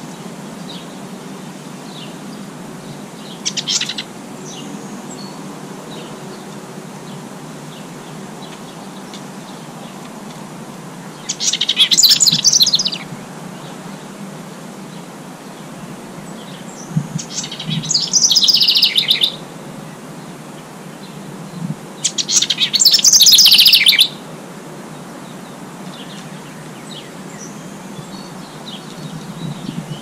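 A small songbird singing in rapid, jumbled bursts: one short song about three and a half seconds in, then three louder songs of about two seconds each in the second half, over a steady faint outdoor hiss.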